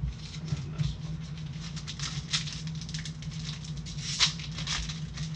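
Foil trading-card pack wrapper crinkling and tearing as gloved hands rip it open, a run of quick crackles with the sharpest rip about four seconds in.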